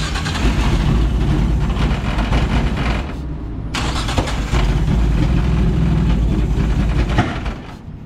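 Nissan RB25 six-cylinder with individual throttle bodies being cranked on the starter in two attempts of about three seconds each, with a short pause between. The engine is hard starting.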